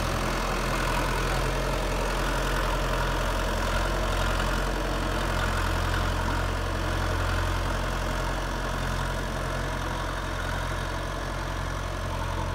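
YTO tractor's diesel engine running steadily as the blade tractor backs away, growing slightly fainter near the end.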